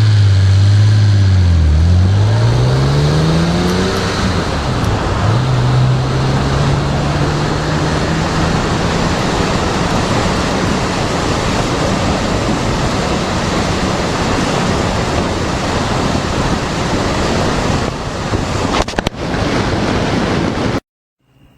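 Engine of a moving vehicle under a heavy rush of wind noise. Its pitch falls and rises over the first five seconds, then holds steady, and the sound cuts off abruptly just before the end.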